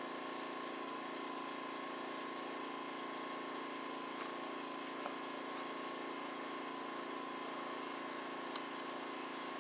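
Small plastic clicks as the wiring connector clips in a scooter's handlebar stem are worked apart: a few faint ones, then one sharp click near the end. Under them runs a steady background hum with a constant tone.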